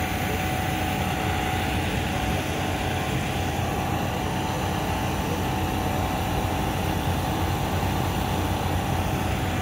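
Steady vehicle running noise: a low, even rumble with a thin steady tone above it.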